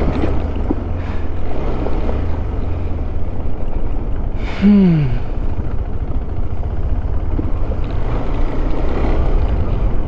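KTM 390 Adventure's single-cylinder engine running at low speed over a rough dirt track, with a deep steady rumble of engine and wind on the microphone. About halfway through, one short vocal sound falls in pitch.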